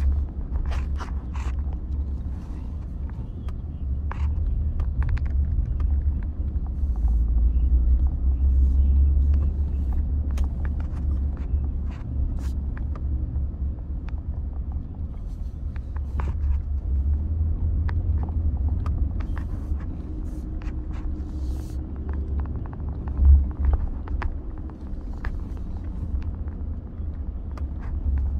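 Low, steady rumble of a car driving slowly, heard from inside the cabin, with scattered light clicks and one brief louder bump about three-quarters of the way through.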